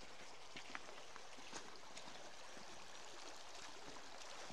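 Shallow stream running over a gravel riffle: a steady, even rush of water with a few faint ticks.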